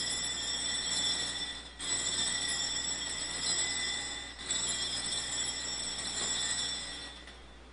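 Altar bells rung in three long shakes, each about two and a half seconds, with a brief break between them. They mark the elevation of the consecrated host at Mass.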